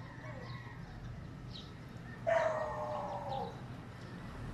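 A rooster crowing about two seconds in: one long call of a little over a second that slides slightly down in pitch.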